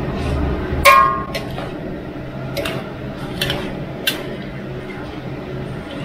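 A metal ladle knocks and scrapes against a large metal wok as a glass noodle salad is tossed, with one ringing clang about a second in, then a few lighter knocks. A steady low hum runs underneath.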